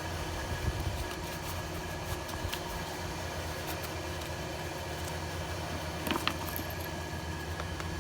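Steady background machine hum with a few light clicks and taps as the chainsaw's air cleaner cover and parts are handled, the sharpest click about six seconds in.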